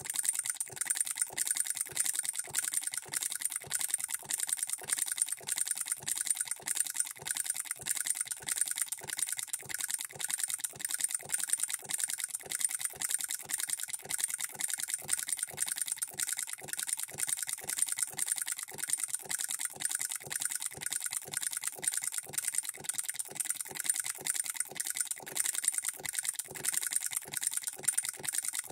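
Hand-built hit-and-miss solenoid model engine running: a rapid, even run of light mechanical clicks from the solenoid and valve gear, hitting and missing under its governor as the supply voltage is turned down.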